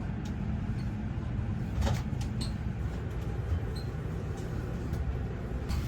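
Steady low rumble of a moving vehicle heard from inside, with a few light clicks and rattles over it.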